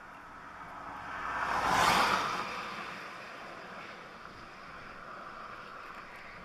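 Strong wind blowing in a gust that swells to a peak about two seconds in and eases off, then keeps up a lower steady rush.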